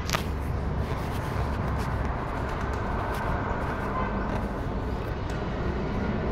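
Steady rumble of distant road traffic, with a single sharp click right at the start.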